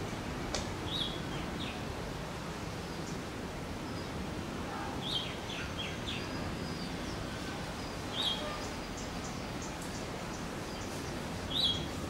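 Short, high bird chirps, four of them a few seconds apart with a few fainter notes between, over a steady outdoor background hiss.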